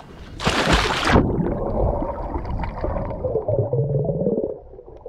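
A short splash as something plunges into the water, then muffled underwater sound picked up by a submerged camera: gurgling and low rumbling with a few wavering tones, fading near the end.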